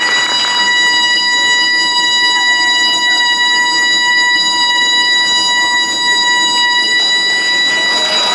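A single high note held steady and unwavering, rich in evenly spaced overtones, sounding from a live Korean traditional music performance.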